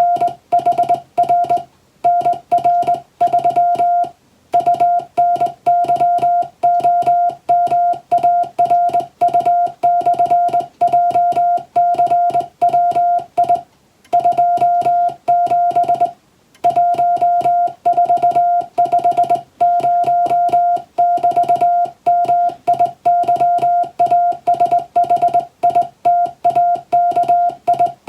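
Morse code (CW) sent as a single steady mid-pitched beep, keyed rapidly into dots and dashes in English text, with brief pauses between words and a few longer breaks.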